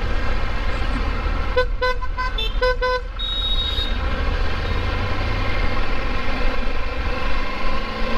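A vehicle horn tooting about five short beeps in quick succession, over a steady low rumble of road traffic and engine noise.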